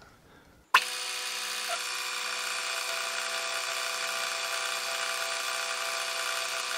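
Metal lathe running a turning cut, taking about a millimetre off the workpiece: a steady machine whine made of several even tones over a hiss. It starts abruptly about a second in.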